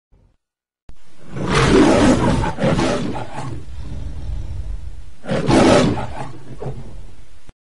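Leo the Lion's roar from the MGM logo, played pitched up: two loud roars about four seconds apart, cutting off suddenly.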